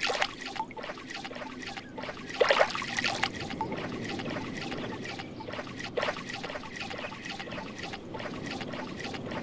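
Water sound effect of toy cars being washed in a river: a steady trickling and lapping of water, with a louder short splash about two and a half seconds in.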